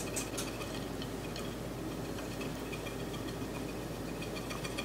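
Crumbly pecan topping poured from a bowl into a glass baking dish: a faint, soft patter over a steady low room hum.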